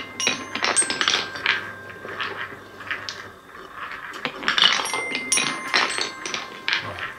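Painted wooden balls rolling and clattering through a wooden marble run, a quick run of clicks and knocks as they circle a wooden funnel bowl and drop down the chutes, with brief ringing notes from the set's sound bars.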